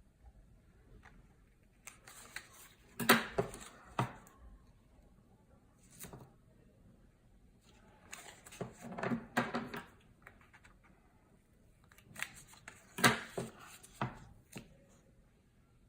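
Double-sided tape being handled and applied to scored cardstock: three short bouts of crisp snips, clicks and rustling.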